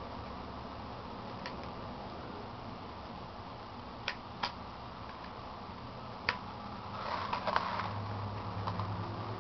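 Hand-fitting of parts on a Kirby Model 512 vacuum cleaner's headlight housing: three sharp clicks about four, four and a half and six seconds in. Near the end comes a short spell of rattling and scraping as the machine is tipped and handled.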